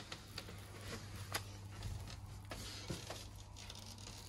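Faint crinkling and rustling of plastic and a foil insulated meal bag being handled, a few soft crackles over a low steady hum.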